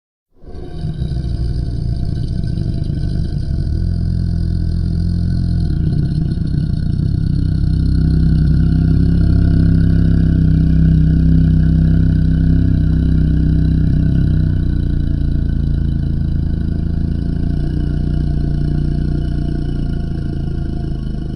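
Monster sound effect: a deep, steady rumbling drone with an engine-like low hum that starts suddenly and swells a little in the middle.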